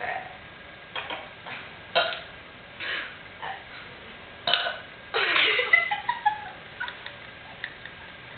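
A string of burps: several short burps in the first few seconds, then a longer, louder drawn-out burp about five seconds in, followed by a few small ones.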